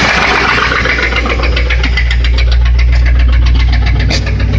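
Land Rover Discovery engine idling with a steady low hum and a rapid, even ticking, which the uploader puts down to an exhaust manifold leak. A rushing hiss fades away in the first second.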